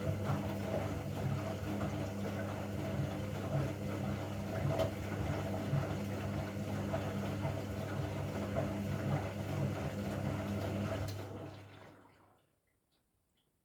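Candy washing machine running, a steady motor hum with water swishing, dying away about twelve seconds in.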